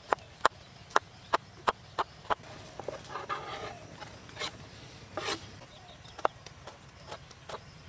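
Steel kitchen knife chopping garlic and onion on a wooden chopping board: sharp knocks of the blade on the wood, about two or three a second with pauses. There is a brief scraping sound about three seconds in.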